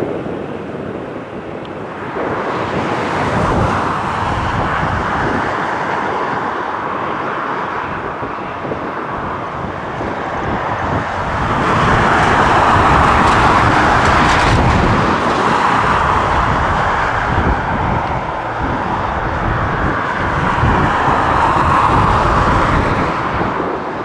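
Helicopter turbine and rotor noise, a steady rushing sound that grows louder a couple of seconds in and is loudest around the middle, as the helicopter passes close by.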